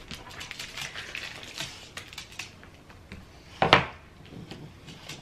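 Plastic wrapper of a dog chew bone being handled and pulled open: a run of small crinkles and clicks, with one louder sharp knock about three and a half seconds in.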